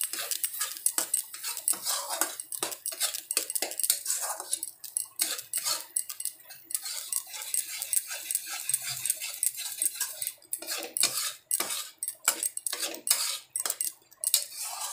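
Metal spatula scraping and knocking against a metal kadhai as a masala paste is stirred and fried in oil: a constant run of quick scrapes and taps.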